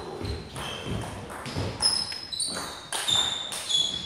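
Table tennis rally: the ball clicking off bats and table in quick succession, with players' shoes squeaking briefly on the wooden floor several times.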